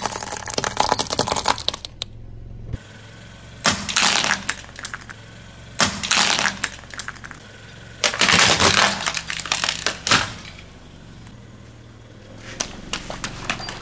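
Car tyre crushing coloured glass light bulbs, the glass crackling and crunching. After a short pause come four separate bursts of cracking and crunching as the tyre crushes a pair of painted eggs.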